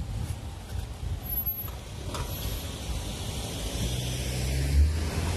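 A car approaching on a street: low engine hum and tyre rumble that grow a little louder toward the end.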